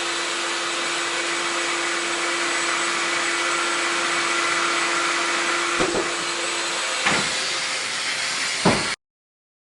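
Festool Domino joiner running with a steady whooshing hiss and hum. The hum stops about seven seconds in, three short knocks follow, and the sound cuts off suddenly near the end.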